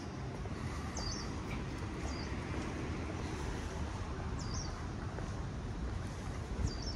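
Steady low rumble of city traffic, with a small bird chirping now and then: four short, high calls spread across the stretch.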